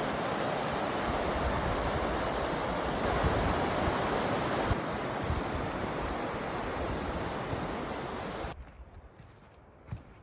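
Waterfall rushing, a dense steady roar of falling water. It cuts off suddenly near the end, leaving a much quieter background with a faint knock.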